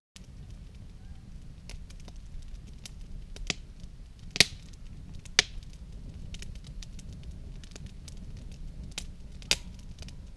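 Wood campfire burning in a steel fire ring, crackling steadily with scattered sharp pops over a low steady rumble. The loudest pop comes about four and a half seconds in, with a few others spread through.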